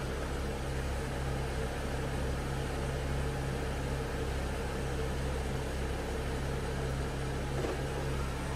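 BMW F10 5 Series engine idling steadily, a low even hum.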